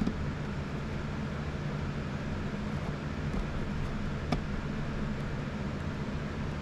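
Steady low machine hum with a faint click about four seconds in.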